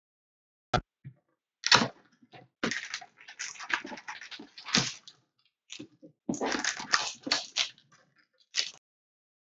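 Packaging on a box of trading cards being torn open, with irregular crinkling and crackling, a sharp click about a second in, and two longer stretches of rustling separated by a short pause.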